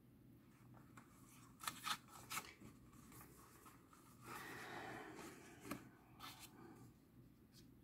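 Faint handling of a book: a few light taps and clicks, with a brief rustle of paper about four seconds in.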